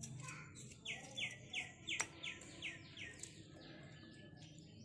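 A bird singing a run of about ten quick downward-sliding notes, about three a second, starting about a second in and fading out after a couple of seconds. A single sharp click falls about two seconds in.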